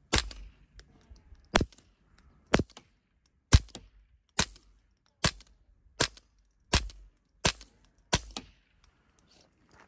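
About ten suppressed .22 LR shots fired in steady succession, roughly one every 0.8 seconds, from a semi-automatic pistol fitted with a Little Spoon .22 LR silencer. Each shot is a sharp crack with a short ring after it.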